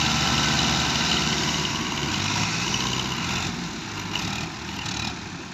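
Diesel tractor engines running steadily under load, pulling a heavily loaded trolley, fading away in the second half.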